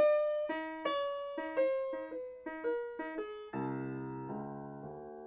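Background music: a piano intro playing a quick run of single notes that steps down in pitch, giving way to held chords a little past halfway.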